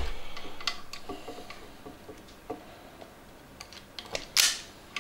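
Self-adjusting wire stripper clicking as its jaws are set on a fine-gauge hookup wire, then a sharp snap a little over four seconds in as the handles are squeezed and the insulation is pulled off.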